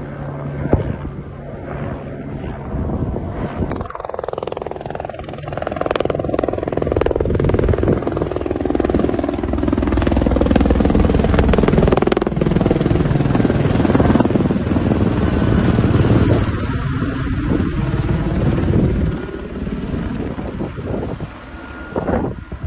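Firefighting helicopter flying low overhead, its rotor and engine getting louder to a peak about halfway through, then fading as it moves away.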